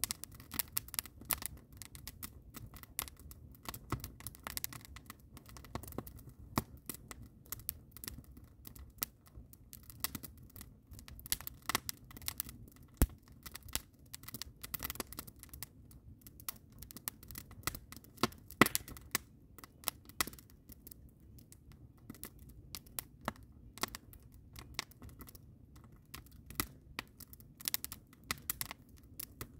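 Wood fire of split logs and green evergreen boughs crackling: irregular sharp pops and snaps, several a second, with a few louder cracks, over a low steady rush.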